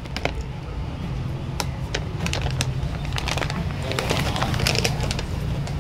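Plastic bags and packaging rustling and crinkling as gifts are unpacked. The small clicks and crackles come scattered at first and grow busier in the middle, over a steady low hum.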